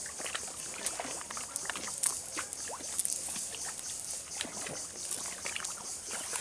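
A cast net being handled and gathered up: irregular rustling with scattered light clicks and ticks over a steady high hiss.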